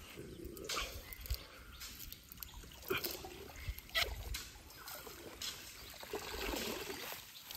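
Water trickling and splashing off a wet cast net as it is hauled up out of the water, with a few short splashes along the way.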